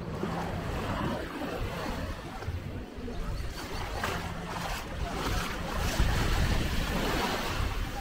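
Gentle surf washing onto a sandy shore, with wind buffeting the microphone, which grows heavier about three-quarters of the way in.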